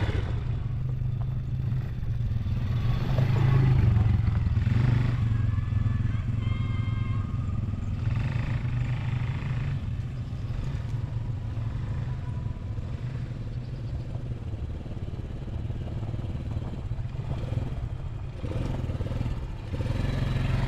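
ATV engine running as the quad is ridden along a trail, a steady low drone throughout that swells a little about four seconds in.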